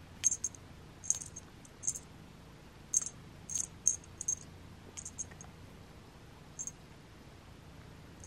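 A cat rubbing its face along the rod of a wand toy: irregular short, high-pitched scratchy clicks of the stick against fur, whiskers and teeth, many in the first half and sparser later.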